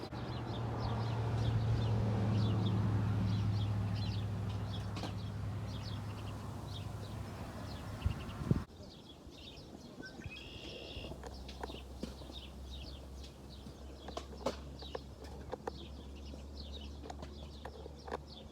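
Small birds chirping in short high notes throughout, over a low droning hum that swells and fades in the first half and then cuts off abruptly, leaving a quieter steady low hum with a few clicks.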